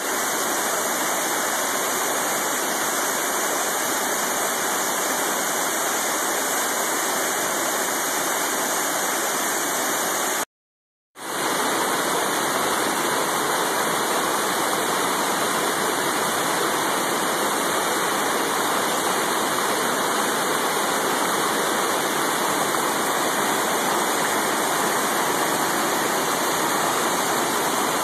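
Waterfall rushing in a steady, unbroken roar of falling water. About ten seconds in the sound cuts out completely for under a second, then the water resumes just as steadily.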